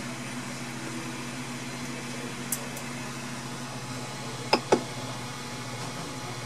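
Steady hum of a powered-on Ender 3 Pro 3D printer's fans. There is a faint click about two and a half seconds in, and two sharp clicks about four and a half seconds in as the control knob is pressed.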